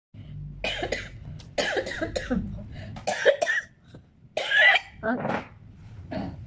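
A woman coughing repeatedly, about five rough coughs a second or so apart: a cough from a viral cold with phlegm and a sore throat.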